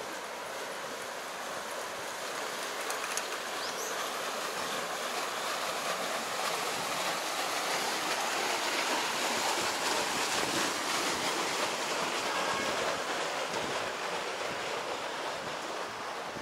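Steady rush of flowing water, growing louder toward the middle and then easing off again, as when walking past a small weir or cascade on a stream.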